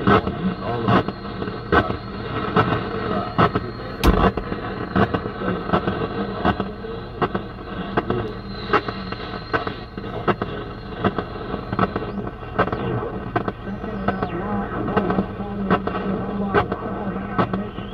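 The dashboard AM radio of a 1966 Ford truck hissing and crackling with static as it is tuned, sharp pops every second or so over a steady hiss, with a thin high whistle that stops about twelve seconds in.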